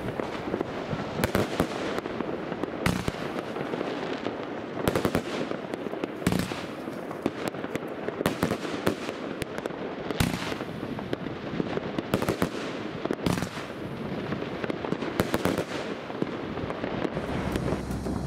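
A 30 mm fan firework cake firing a fast, uneven series of sharp shots, roughly one a second. Each shot lifts coloured mine stars and breaks into multicolour peony bouquets, with a continuous noisy rush between the shots.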